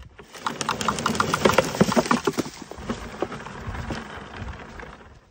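Gardena push-along leaf collector rattling and clicking as its brush roller turns over the lawn, with hard clattering knocks as horse chestnuts are swept up into the collecting bag. Busiest in the first few seconds, then lighter.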